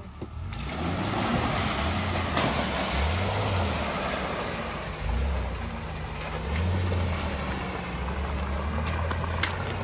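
Off-road 4x4's engine revving under load as it drives forward over a log obstacle. The revs rise and fall several times over a steady rushing noise that starts about half a second in.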